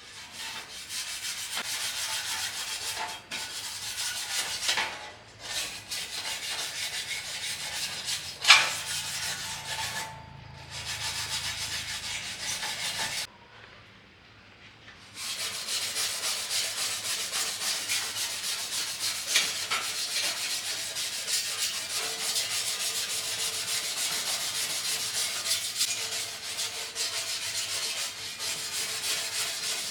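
Abrasive rubbing, like sandpaper or a brush scouring a surface by hand, going on steadily with brief pauses and a longer break about 13 seconds in. A single sharp knock about 8 seconds in is the loudest moment.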